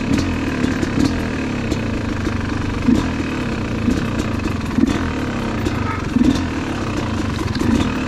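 Yamaha YZ250 two-stroke dirt bike engine running at low revs as the bike rolls down a rough dirt trail, with scattered short knocks and rattles over bumps.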